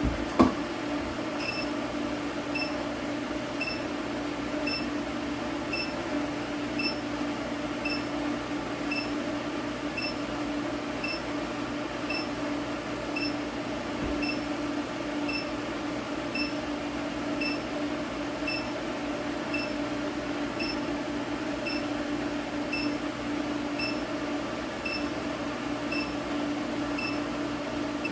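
Induction forge running while it heats the knife blades to forging temperature: a steady electrical hum with a short high beep repeating about three times every two seconds.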